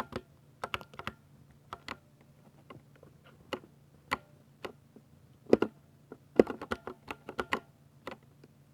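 Typing on a 60% mechanical keyboard with linear Cherry MX Silver switches: irregular key clacks in short clusters, with a faster, louder run of keystrokes past the middle that stops shortly before the end.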